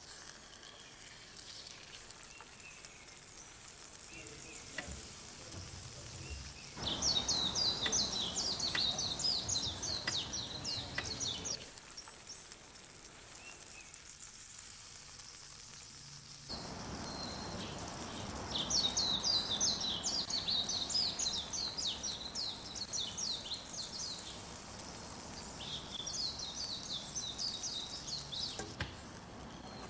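Food frying in hot oil in a pan: a steady sizzle with dense, rapid crackling. It turns suddenly louder about a quarter of the way in, drops back a few seconds later, and swells again just past the middle.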